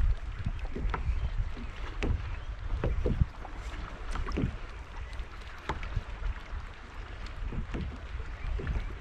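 Sit-on-top fishing kayak at sea: wind rumbling on the microphone and water lapping at the plastic hull, with scattered short knocks and clicks, a couple of louder ones about two and three seconds in.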